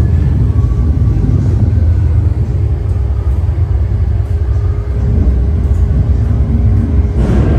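Roller coaster ride: a loud, steady low rumble of the train running along the track, mixed with wind buffeting the microphone.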